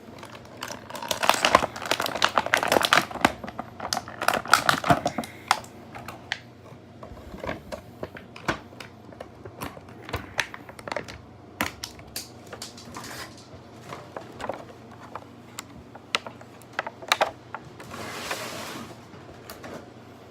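Plastic action-figure packaging being handled: quick clicks and crackles of the plastic tray and parts, dense for the first few seconds and then scattered. A short rustle comes near the end.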